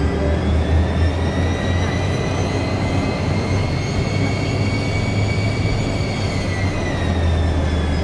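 Yak-40's three rear-mounted Ivchenko AI-25 turbofans heard from inside the cabin while taxiing: a steady low rumble under a high engine whine that rises slightly, holds, then falls away about six seconds in.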